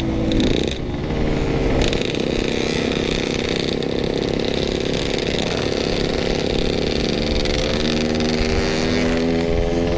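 Yamaha RX-King 135cc two-stroke single-cylinder engine running under way, with a short dip in revs about half a second in, then steady revs, then rising in pitch near the end as it accelerates.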